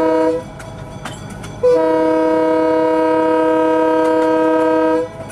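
GE 70-tonner diesel locomotive's air horn heard up close from the cab: a short blast, then a long steady blast of about three seconds, sounding a chord of several notes. This is the short-then-long close of the grade-crossing signal. The wheels click over rail joints underneath.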